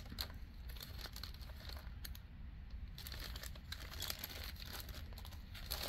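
Plastic packaging crinkling as it is handled, a quiet, irregular run of small rustles and clicks.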